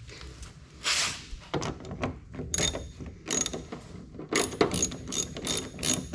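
Hand ratchet wrench clicking in a run of short back-and-forth strokes, working a bolt on a car door hinge.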